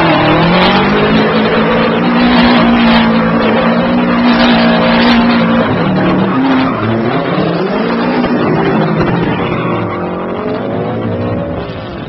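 Subaru rally car's turbocharged flat-four engine held at high revs while the car spins donuts, tyres squealing and skidding on the pavement. About six seconds in, the revs drop and then climb again.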